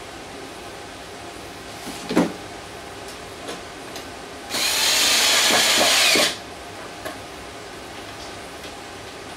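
Cordless drill-driver running under load for about two seconds, its pitch sagging as it works into the plywood. A short, sharp sound comes about two seconds earlier.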